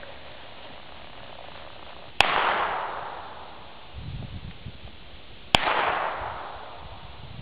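Two gunshots fired from horseback, about three seconds apart. Each is a sharp crack with a short echoing tail.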